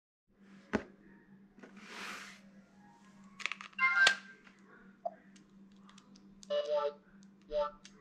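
T-Mobile Sidekick II (Hiptop 2) being handled: a sharp click, a soft swoosh, then a clatter of clicks with a short tone as the swivel screen is swung open to the keyboard. Near the end come two short electronic chime sounds from the phone's small speaker.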